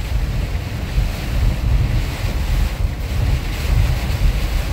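Heavy storm rain and strong wind beating on a moving van, heard from inside the cabin as a steady noise with a deep low rumble.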